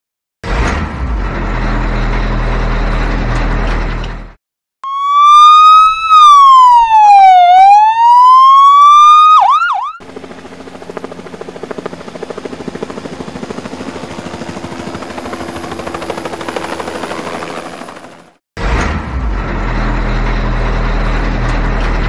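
A vehicle-engine rumble runs with a deep steady hum and cuts off about four seconds in. Next comes a loud electronic siren, the loudest part, that wails up, down and back up and ends in a few quick chirps. A quieter steady mechanical running noise follows, and the engine rumble starts again near the end.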